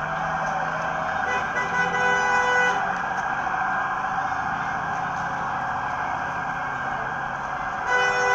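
Vehicle horns honking on a city street. One long honk comes about a second in and another starts near the end, over continuous loud traffic and street noise.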